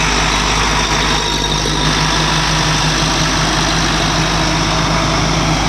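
Heavy diesel engine of a tractor or backhoe loader running steadily at a constant speed.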